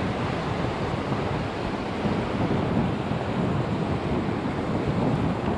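Steady wind noise on the microphone over the continuous wash of surf on a beach.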